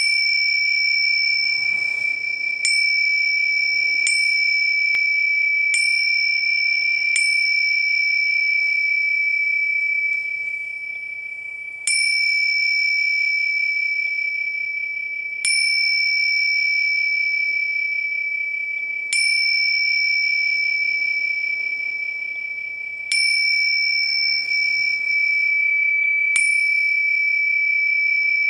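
A small bell struck about a dozen times, each strike renewing a high, clear ringing tone that fades slowly until the next. The strikes come quickly at first, then every three to four seconds.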